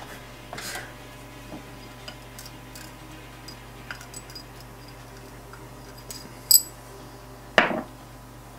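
Faint clicks and taps of small parts being handled, then a short, bright clink of a small glass with a ringing tone about six and a half seconds in, and a duller knock a second later.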